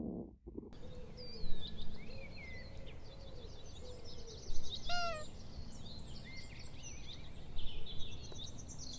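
A low stomach growl ends abruptly just under a second in, giving way to songbirds chirping and twittering over a steady outdoor background hiss. One short, clearer call stands out about five seconds in.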